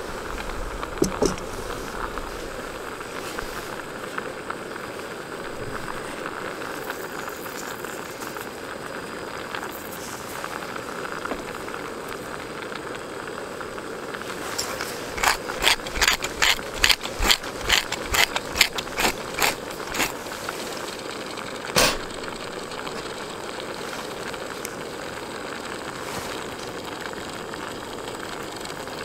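Food simmering in a Trangia pot, a steady hiss, with a quick run of a dozen or so sharp clicks around the middle and one more click a couple of seconds later.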